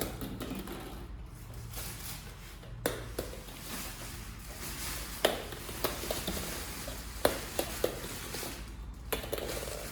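A mass of small balls shifting and rustling as cats move through them, with a handful of sharp knocks and clicks scattered through it.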